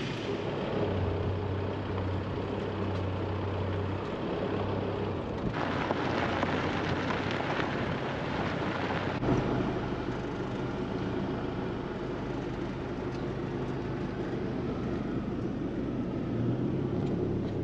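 Four-wheel drive travelling on a dirt track: steady engine drone mixed with tyre and gravel noise, changing abruptly in tone about five and nine seconds in.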